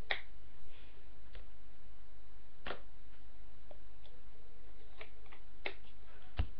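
Scattered sharp clicks and knocks from a plastic drink bottle and its wrapping being handled close to the microphone, over a steady low hum.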